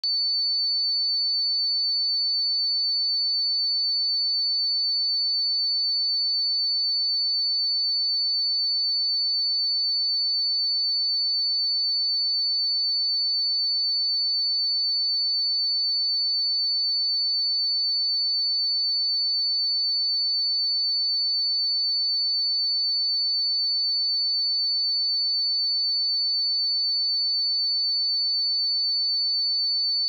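A steady 4504 Hz sine wave test tone, one pure high-pitched note held at a constant level.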